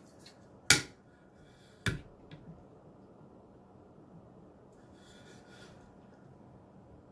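Two sharp clicks about a second apart, then a couple of faint ticks and a short soft rustle over quiet room noise.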